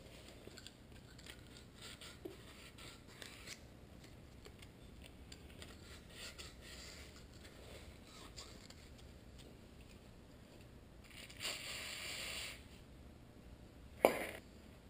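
Faint scraping of 180-grit sandpaper rubbed by hand over a metal brake caliper part to clean off dust, in short strokes. Near the end comes a brief hiss of an aerosol spray can, then one sharp knock, the loudest sound.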